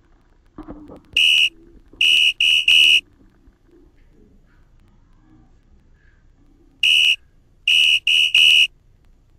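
Shrill whistle blasts on one steady high pitch, in a pattern of one short blast and then a quick run of three. After a pause of about four seconds the pattern repeats.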